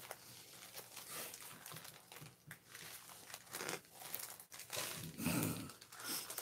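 Plastic packaging crinkling and rustling as hands handle a small plastic bag of diamond-painting drills, with a louder rustle about five seconds in.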